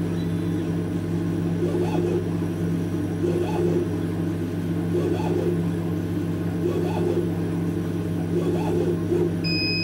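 Laser cutter cutting small round pads from felt: a steady machine hum, with the head's motors whirring in a short repeating pattern about every second and a half as each circle is traced. A short electronic beep sounds near the end.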